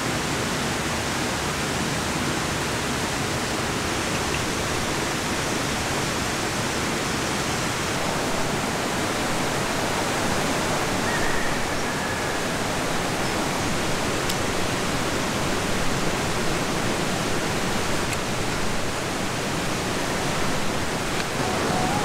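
Mountain valley stream rushing steadily: an even, unbroken wash of water noise.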